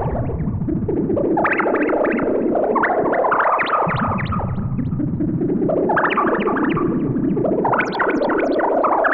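Arturia SYNTHI V software synthesizer, an emulation of the EMS Synthi AKS, playing an effects patch: a dense stream of rapid, short blips over a low drone, swelling up in pitch and thinning out again several times.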